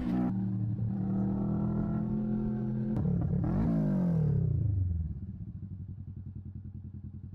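Motorcycle engine running at a steady cruise, then a click about three seconds in, after which the engine note falls as the bike slows and settles into a low, even pulse.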